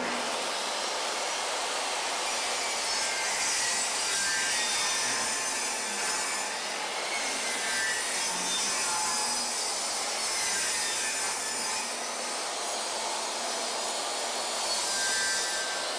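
Portable table saw running steadily as a long trim board is fed through it, ripping it lengthwise into narrow 3/4-inch strips.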